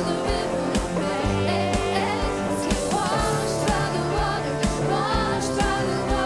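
Upbeat music with a steady drum beat, about two beats a second, and a singing voice.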